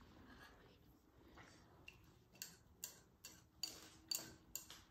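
Metal wire whisk scraping and clicking against the inside of a ceramic mixing bowl while batter is scraped out. Light, quick clicks start about halfway through, at roughly two to three a second.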